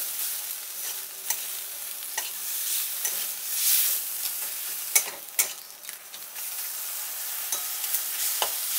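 Kharkol leaf paste sizzling in mustard oil in a kadai as a spatula stirs and scrapes it, with a few sharp scrapes of the spatula against the pan. The paste is being stir-fried until it turns dry.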